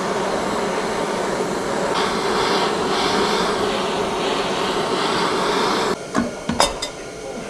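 A steady mechanical running noise that cuts off suddenly about six seconds in, followed by a few sharp clicks and knocks.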